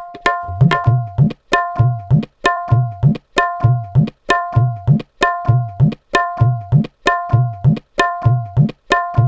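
Tabla playing a short rhythmic pattern over and over at an even tempo: ringing, pitched strokes on the small right-hand drum alternate with deep strokes on the bass drum that swoop up in pitch.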